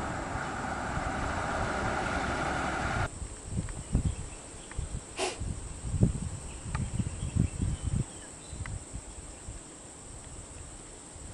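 A diesel bus engine running, with wind on the microphone. About three seconds in the sound cuts to quieter open-air roadside noise: irregular low gusts of wind on the microphone, a few soft knocks and a faint steady high-pitched hum.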